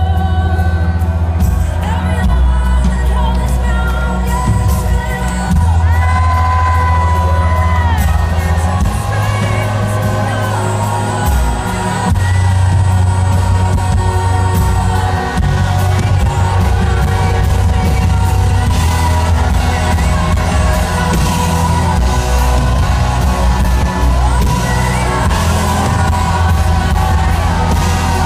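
Live concert music filmed from the audience: a singer over a loud band with heavy bass.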